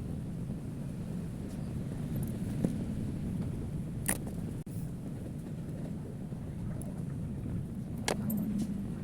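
Steady low background rumble with two brief sharp clicks about four seconds apart.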